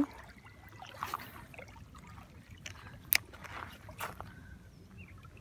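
Small waves lapping at the shoreline over a low steady rumble, broken by a few sharp clicks and taps, the loudest about three seconds in.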